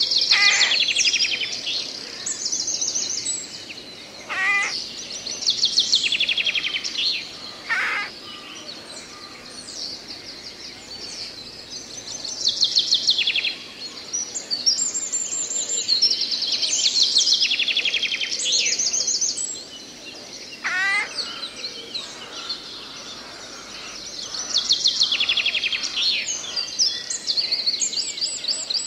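Songbirds singing: several birds give fast, high, trilled song phrases of about two seconds each, one every few seconds, with a few shorter, lower calls between them over a steady hiss of forest ambience.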